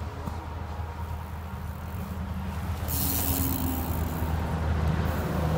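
A mountain bike passing close by on a dirt jump trail, its tyres rushing over the packed dirt, loudest from about three to five seconds in, over a steady low rumble.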